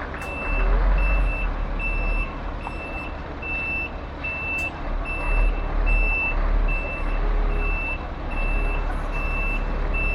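Concrete pump truck's reversing alarm beeping evenly, about one and a half beeps a second, over the low rumble of the truck's engine, which swells now and then.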